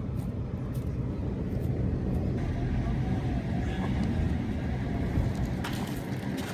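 A car running, a steady low rumble, as it sets off to drive out through the snow.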